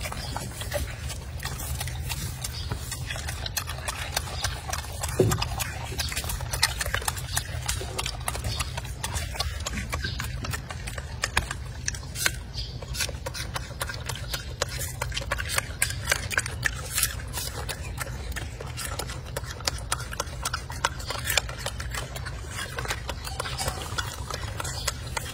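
Golden snub-nosed monkey chewing food close up: a fast, irregular run of wet clicks and smacks from its mouth, over a steady low rumble.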